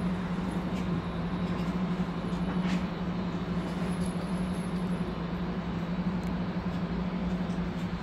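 Steady droning hum of an indoor shooting range's ventilation system, with a few faint clicks.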